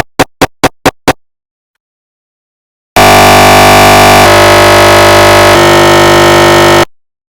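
Recreation of a GE 1.5T SIGNA Victor MRI scanner's gradient sounds for a DWI axial sequence. Rapid knocks, about four a second, stop about a second in. After a pause comes a loud steady buzz that shifts pitch twice and cuts off sharply near the end.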